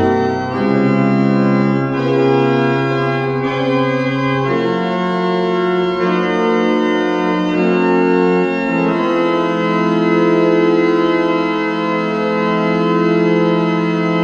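Organ music playing slow, sustained chords that change every second or two. The last chord is held from about two-thirds of the way through.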